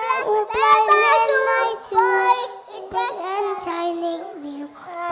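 Young children singing a nursery rhyme together, in held, stepping notes.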